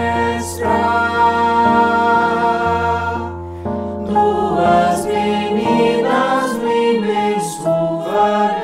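Mixed-voice chamber choir singing in several-part harmony, with a held low note underneath for the first few seconds.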